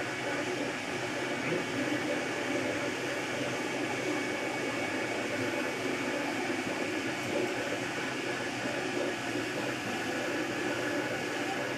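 MakerBot Replicator 2 3D printer running a print: a steady whir from its cooling fan with the stepper motors' faint high tones as the extruder head moves back and forth, without a pause.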